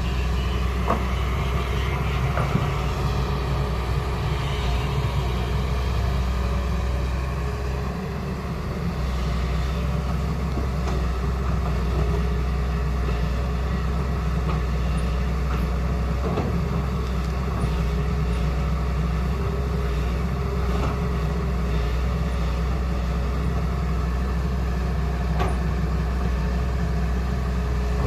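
Hyundai R210 Smart Plus crawler excavator's diesel engine running steadily under work. Its note dips briefly about eight seconds in, and a few short knocks come through now and then.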